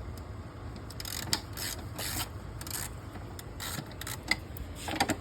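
Irregular clicks and light clatter of hand work on a car engine, a dozen or so short knocks and scrapes at uneven intervals over a low background hum.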